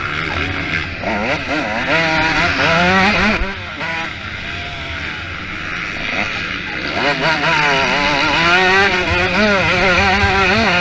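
Motocross motorcycle engines racing, their pitch rising and falling again and again as the riders rev through the gears. The sound eases off a few seconds in and builds up loud again about two-thirds of the way through.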